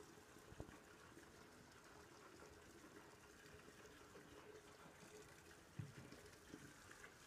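Near silence: faint room tone with a steady low hum, broken by two soft knocks, one under a second in and one about six seconds in.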